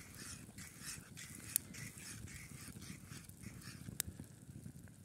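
A spatula stirring scrambled eggs in a frying pan over a campfire: a quick run of sizzling scrapes, a few strokes a second, that stops near the end. There are two sharp clicks, one about one and a half seconds in and one about four seconds in.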